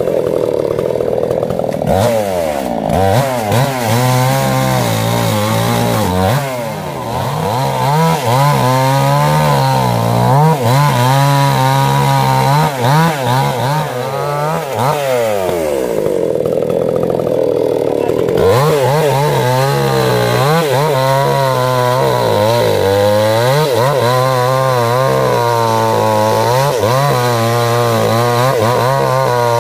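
Robin two-stroke petrol chainsaw cutting through a felled tree trunk, its engine pitch rising and falling over and over as the chain bites into the wood and eases off.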